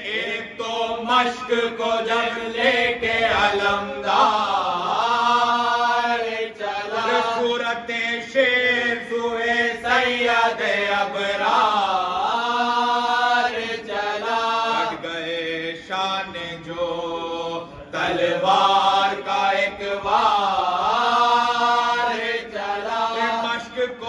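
Unaccompanied Urdu marsiya (Shia elegy) chanted by a male reciter into a microphone, with a few men singing along in unison. The singing runs in long held lines with wavering, swooping notes, broken by a short pause about three-quarters of the way through.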